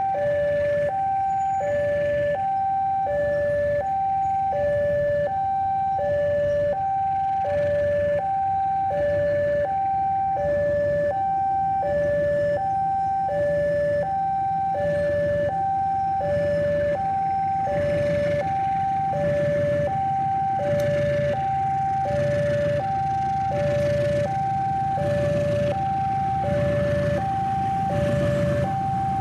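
Railway level-crossing warning alarm: an electronic two-tone signal, a higher and a lower tone alternating steadily. Under it is the low rumble of a CC 201 diesel-electric locomotive pulling out, which grows louder near the end as it comes closer.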